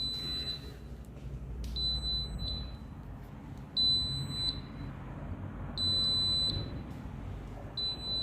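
Risco alarm system beeping after being armed, the exit-delay countdown: a high single-pitched beep about two-thirds of a second long, repeating about every two seconds.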